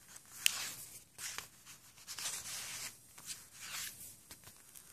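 Paper pages of a handmade junk journal rustling as they are turned and brushed flat by hand, with a sharp paper flick about half a second in.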